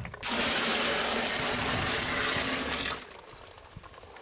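Grape juice gushing from a tipped aluminium pot into a plastic barrel: one loud, even pour that starts abruptly and stops just as abruptly after about two and a half seconds.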